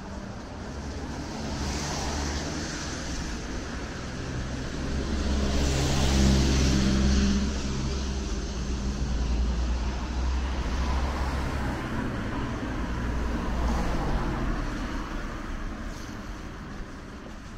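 Street traffic with one motor vehicle passing close, loudest about six seconds in, its engine drone and tyre hiss swelling and then fading. Lighter traffic noise carries on after it.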